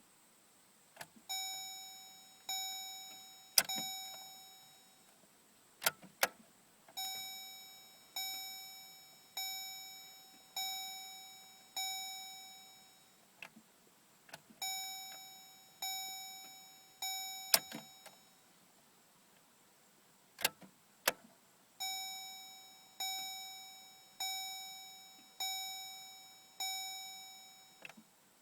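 Chevrolet Colorado's dashboard warning chime ringing in runs of three to six bell-like dings, about one every 1.2 seconds, with sharp clicks in the pauses between runs. No engine cranks or runs, in keeping with the truck's intermittent no-start.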